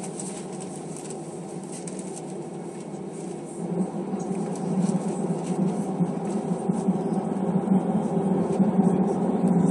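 Airbus A320 cabin noise heard at a window seat over the wing: a steady jet-engine hum that grows louder from about three and a half seconds in as the airliner moves toward the runway for takeoff.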